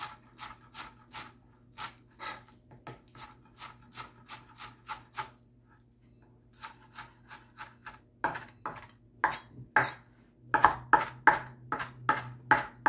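Chef's knife chopping cilantro on a plastic cutting board, a steady run of about three knife strikes a second. The chopping pauses about halfway through, then resumes with louder strikes.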